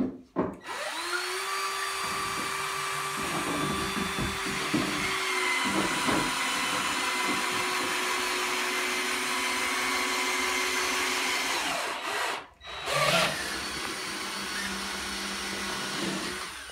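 Cordless drill-driver motor running with a steady whine, driving screws into a wooden bed ladder's rail, with a few knocks early on. It stops briefly about twelve seconds in, then runs again for a few seconds.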